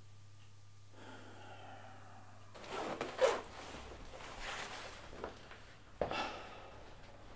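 Leather jacket rustling and creaking in uneven bursts as it is pulled on and its collar settled, with a sharp knock near the end.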